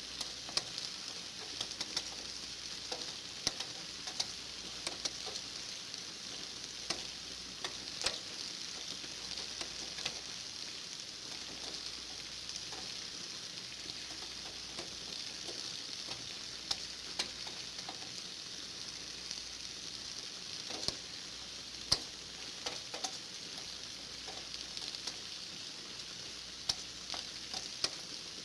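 Steady rain, an even hiss with scattered sharp taps of individual drops, one louder tap near the end.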